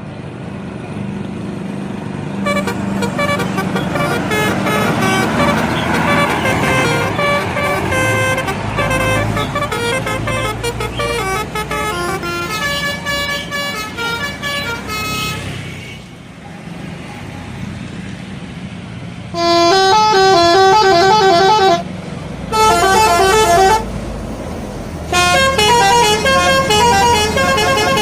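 Indonesian bus 'telolet' multi-tone horns playing quick melodic runs of changing notes, over a bus engine running. First comes a long passage of rapid notes, then, after a lull, three loud separate horn bursts near the end.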